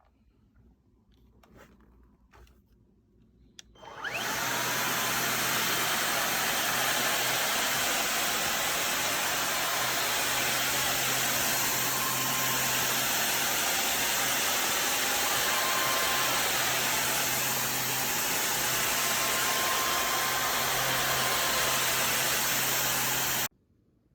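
Samsung Bespoke Jet cordless stick vacuum switched on after a few faint clicks; its motor whines up to speed and then runs steadily with a loud rushing of air. It cuts off abruptly near the end.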